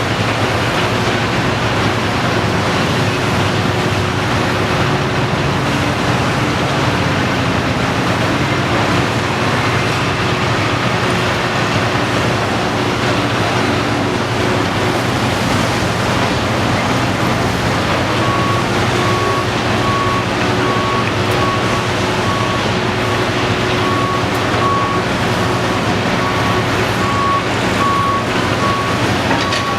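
Cat 330DL excavator's diesel engine and hydraulics running under load, the engine pitch shifting as it digs and swings. Past the middle a high alarm starts beeping on and off.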